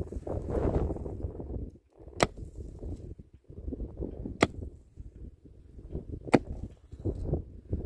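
Pickaxe blows into hard, stony dry ground: three sharp cracks about two seconds apart, with loosened earth and stones scraping between the blows.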